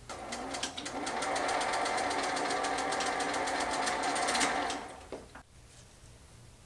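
Sewing machine running: it picks up speed over about the first second, stitches at a fast, even rate, then slows and stops near five seconds, with a single click just after.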